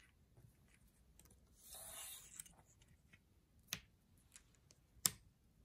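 Faint rustle of hands on paper, then small sharp clicks, the two loudest about a second and a half apart near the end: plastic counters being handled and set down on a paper strip on a tabletop.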